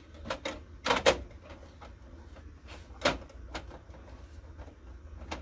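Plastic clicks and knocks from an office printer's covers and parts being handled and worked on, a few separate sharp knocks with the loudest pair about a second in.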